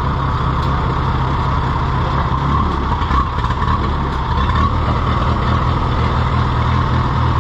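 Case VAC tractor's four-cylinder gasoline engine running steadily at low speed, its note shifting about a third of the way in and again near the middle.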